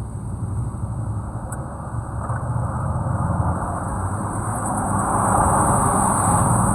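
A 4WD vehicle's engine running steadily, getting louder about halfway through.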